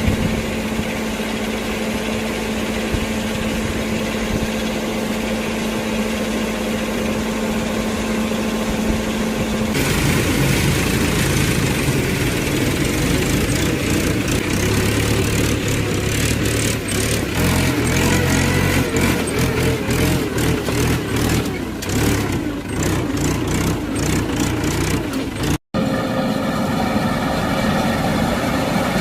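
Rice combine harvester's engine and machinery running steadily. The sound changes abruptly about ten seconds in and again near the end, where clips are cut together.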